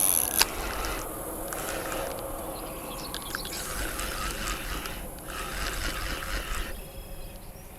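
Fishing reel working while a hooked carp is played in: the reel's mechanism clicking and whirring in spells with short pauses.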